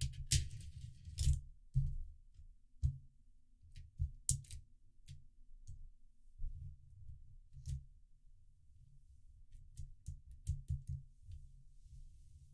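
Coins clicking and clinking as they drop into a 3D-printed plastic coin sorter and slide into its tubes, in scattered single clicks that bunch up in the first two seconds and again near the end. Dull low thumps run under them as the sorter is handled on the cloth-covered table.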